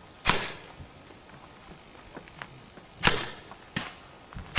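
Gunshots: sharp cracks, each with an echoing tail, one a fraction of a second in, another about three seconds in followed closely by a shorter crack, and another at the very end.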